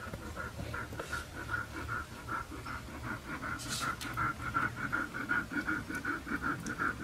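Siberian husky dog panting rapidly, about five short breaths a second, with a brief rustle about halfway through.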